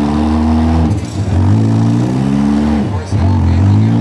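Four-cylinder compact demolition-derby car engine revving hard. It climbs in pitch and holds, drops off about a second in and again about three seconds in, then climbs again.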